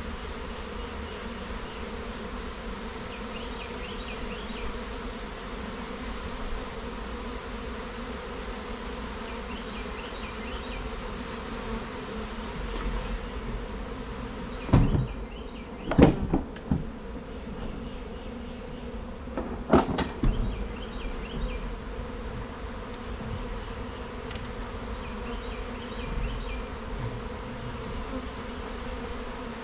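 A mass of honeybees humming steadily. Several loud knocks come about halfway through.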